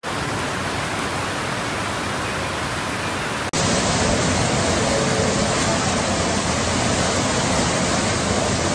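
Floodwater rushing and cascading, a steady, dense rush of water. About three and a half seconds in it cuts to a louder, fuller torrent of floodwater pouring down an escalator into a flooded station.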